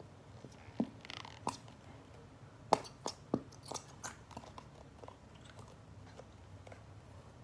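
Plastic bottle of white school glue being squeezed hard to empty it into a glass dish: scattered soft clicks, crackles and wet pops from the flexing bottle and the glue and air spurting from its nozzle, one louder pop nearly three seconds in.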